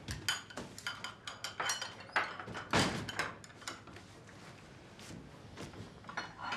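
Scattered light knocks and clicks of footsteps on a hard floor and chopsticks tapping against bowls, fairly quiet, busiest in the first three or four seconds and thinning out after.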